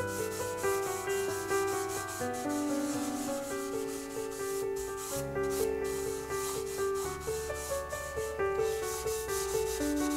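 A cloth rubbed briskly back and forth over a maple board, working in tung oil, in quick repeated strokes. Background music plays under it.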